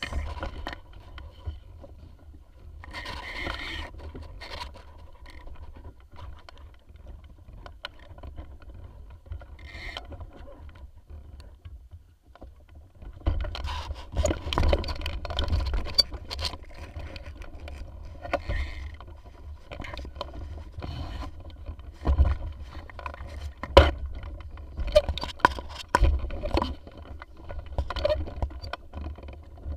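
Sounds aboard a Tiwal 3 inflatable sailing dinghy under way: a steady low rumble of wind on the microphone, with irregular knocks, scrapes and water splashes that grow busier about halfway through.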